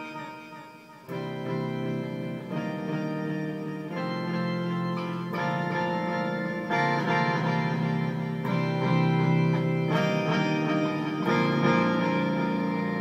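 Electric guitar run through a Line 6 M13's harmonizer, octave pitch-glide and bass-octaver effects into a digital delay, playing a slow series of sustained, organ-like chords. A chord dies away at the start, a new one comes in about a second in, and the chords change every one to two seconds.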